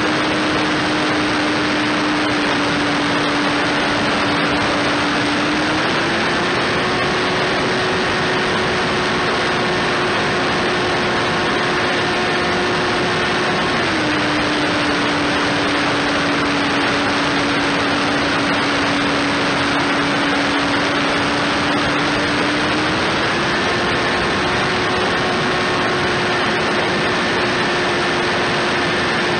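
Onboard sound of an RC foam airplane's electric motor and propeller running at cruise throttle: a steady whine over heavy wind and prop-wash hiss. The pitch steps up slightly about a fifth of the way in, drops back about halfway, and steps up again about three-quarters of the way through, following small throttle changes.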